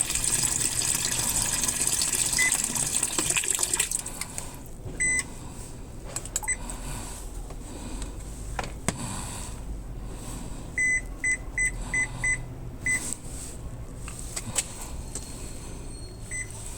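Muji M-W42D fully automatic washing machine: water pouring into the tub stops abruptly about four seconds in. Then the control panel beeps, singly twice, then a quick run of six beeps past the middle, and once more near the end. A few light clicks fall in between.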